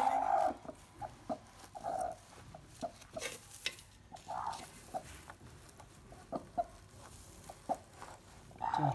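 Hen sitting on a straw nest clucking in a string of short notes, loudest right at the start, while a hand rummages under her; straw rustles and crackles in between.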